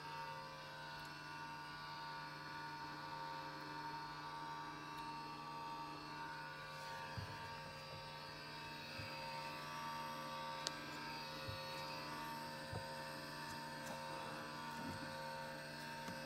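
Steady electrical hum and whine from the powered-up avionics and instruments in a Beech Duke cockpit, several steady tones at once with no engine running. A few light clicks in the second half as the panel controls are handled.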